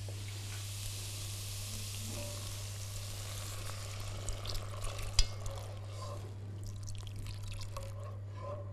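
Onion, garlic and spices frying in oil in a pot, sizzling and hissing as hot water is poured in from a steel kettle to start a sauce. The hiss is strongest over the first few seconds and thins out after about five seconds, with one sharp clink about five seconds in.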